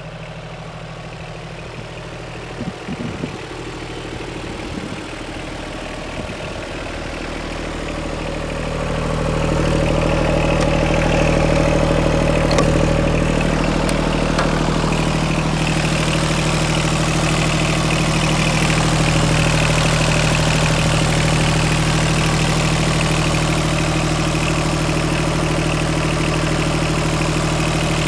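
Yanmar F-6 compact tractor's diesel engine idling steadily at an even speed, growing louder about a third of the way in and staying loud.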